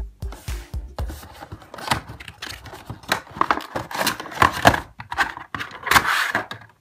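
Cardboard Funko Pop box being opened and the vinyl figure pulled out of its clear plastic insert: irregular crinkling, scraping and clicking of plastic and cardboard, with a few low thumps in the first second.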